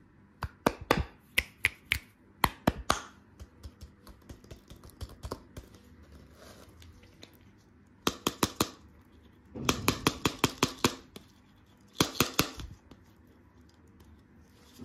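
Hard plastic lollipop heads clicking and tapping as they are handled and knocked together. Scattered taps come first, then three quick bursts of rapid clicks in the second half.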